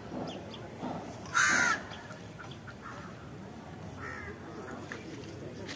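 A bird calling: one loud call about a second and a half in, and a fainter one about four seconds in.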